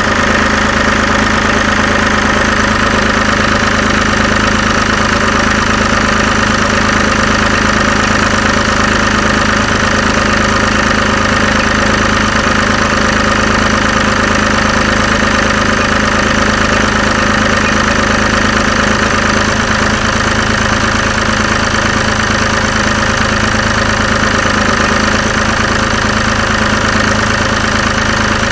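David Brown tractor engine running at a steady speed close by, driving the trailer crane's hydraulics as it lifts a large tamarack log.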